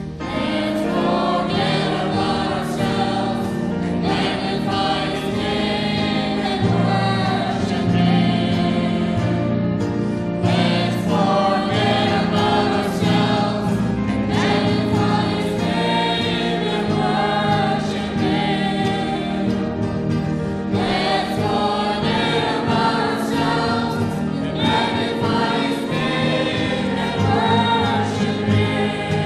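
A group of voices singing a Christian worship song in sustained phrases, with short breaks between lines.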